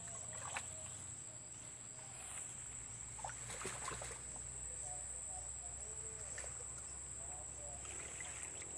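Steady high-pitched insect drone, with a few soft splashes and rustles of hands working in shallow muddy water among leaves.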